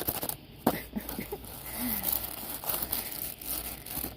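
Packaging of a new replacement side marker light being torn and pulled open, with irregular crinkling, crackling and tearing.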